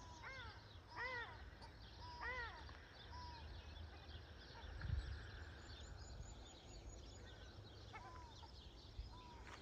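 Tūī calling: short arched notes with overtones, repeated at irregular intervals, several in the first few seconds and a couple more near the end. Faint high chirps and twitters run alongside, over a low steady rumble.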